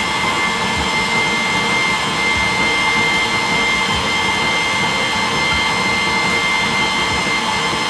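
Electric kitchen mixer running steadily, beating a carrot-cake batter of eggs, sugar and oil while flour is spooned in: an even motor whir with a high, steady whine.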